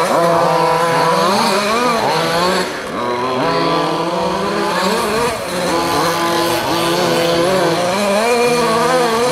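Small nitro engines of several 1/8-scale RC off-road buggies racing, each revving up and down as the cars accelerate and back off, with the pitches overlapping. The sound eases briefly about three seconds in and again a little past five seconds.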